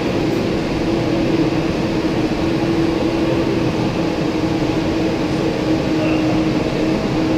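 Wattbike indoor bike flywheels whirring steadily as several riders pedal hard, a loud, even rushing noise with one steady hum running through it.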